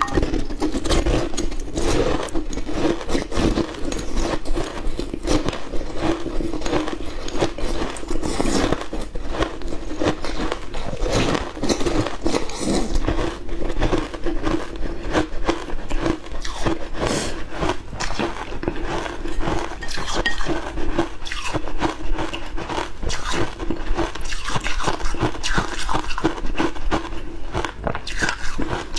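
Frozen matcha ice being bitten and chewed close up: a dense, irregular run of sharp crunches and cracks.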